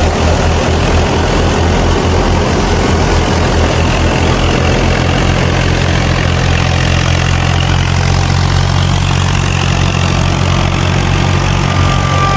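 Tractor diesel engine running steadily, driving a wheat thresher through the PTO while wheat is fed in: a loud, steady low engine hum under an even mechanical rush of the threshing machinery.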